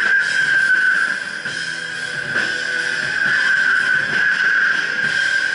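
Band playing loud live music with guitar and drums, a steady high ringing tone running through the whole wash of sound.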